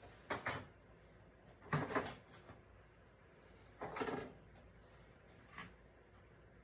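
Someone rummaging through tool storage in search of pliers: four short bursts of clattering and knocking, the loudest about two seconds in.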